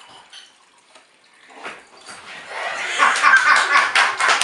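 A bulldog and a rabbit scuffling on a rug and hardwood floor: a dense, scratchy clatter of claws and paws that starts about two and a half seconds in and gets loud.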